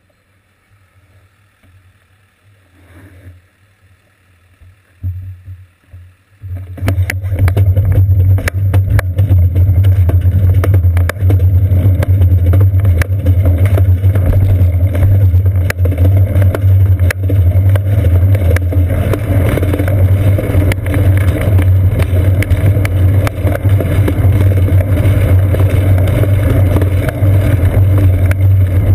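Road rumble and wind buffeting picked up by a GoPro camera mounted on a moving bicycle's seat post: a loud, steady low rumble with frequent clicks and crackles, starting about six seconds in as the bike pulls away. Before that the sound is low, with only a few passing noises.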